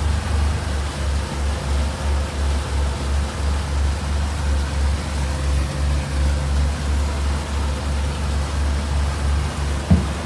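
Motorboat running underway: a steady low rumble that pulses unevenly, with a single short knock near the end.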